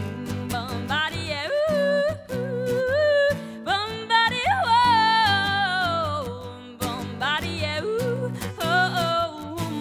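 Solo female voice singing long, ornamented vowel lines with wavering pitch over a strummed steel-string acoustic guitar. About four seconds in, one held note climbs to a peak and then slides slowly down over the next two seconds.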